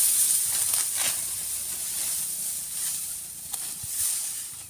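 Dry wheat stalks rustling and crackling as they are bunched by hand and cut with a toothed hand sickle, with a few short sharp rasps as the blade goes through.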